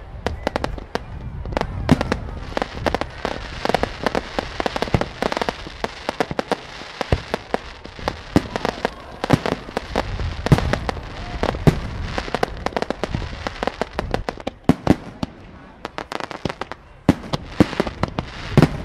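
Aerial fireworks display: shells bursting in a rapid, irregular string of sharp bangs and crackles, several a second, over a steady rumble. The barrage eases briefly about three-quarters of the way through, then picks up again.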